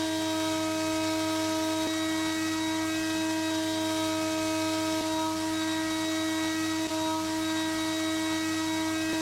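Small electric motor running steadily: a constant hum with a whine over it, unchanged throughout, with a faint click every couple of seconds.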